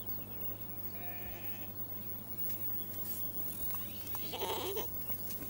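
Flock of sheep and goats bleating: a faint call about a second in and a louder, rougher one around four and a half seconds in.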